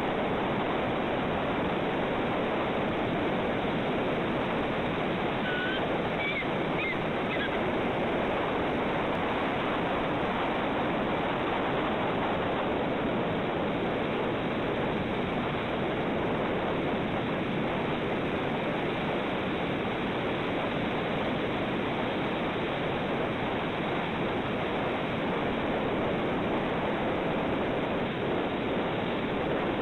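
Steady rushing wash of ocean surf, with a few faint high chirps about six to seven seconds in.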